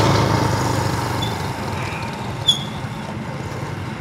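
A motor vehicle's engine hum fading away as it passes, with a short, sharp, high squeak about two and a half seconds in.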